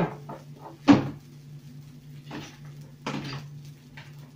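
Kitchen clatter at a steel sink: one sharp knock about a second in, then a few softer knocks and rustles as a bowl and plastic are handled, over a steady low hum.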